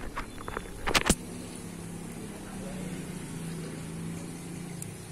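A few sharp knocks in the first second, the loudest just after a second in, then a low steady hum that swells a little in the middle and eases off near the end.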